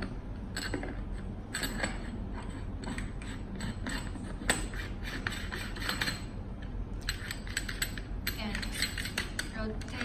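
Lens barrel being twisted back onto an LED gobo projector by hand: a run of small clicks and scraping from the threads and the hands gripping the housing, with a short pause about two thirds of the way in.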